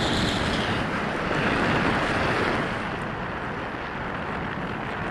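Steady rushing of wind over a small onboard camera microphone, mixed with waves washing on a sandy shore; the noise eases a little after about three seconds.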